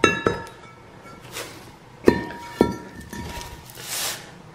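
Cast-iron brake rotors knocking and clinking against each other as they are handled and flipped over. Each hit rings briefly. There are two knocks at the start and two more about two seconds in, with rustling handling noise between.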